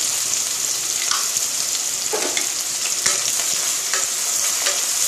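Freshly chopped onions sizzling steadily in hot mustard oil, with a wooden spatula stirring them and giving a few soft scrapes against the pot.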